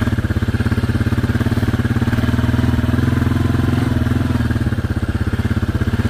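Engine of a small off-road vehicle running steadily at low speed while being ridden, with a fast, even putter.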